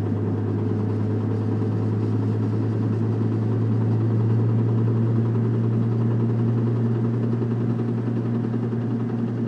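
Knocking from the engine bay of a 1997 Nissan Maxima, really loud while driving off the throttle, over a steady engine and road hum. It is the knock that fades at steady speed and goes away with the clutch pedal in.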